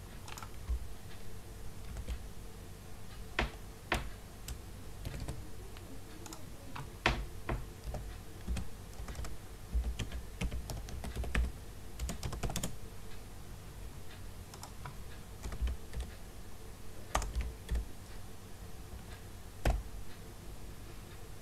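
Typing on a computer keyboard: irregular, uneven key clicks with pauses between short runs, a few strokes louder than the rest. A faint steady low hum runs underneath.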